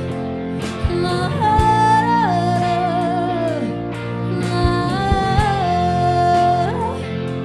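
Live band playing: a woman sings two long held notes that slide down at their ends, over electric guitar chords and a drum kit.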